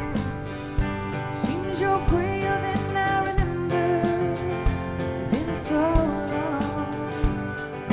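Background music: a country-style song with guitar, a steady drum beat, and a singer coming in about one and a half seconds in and again past the midpoint.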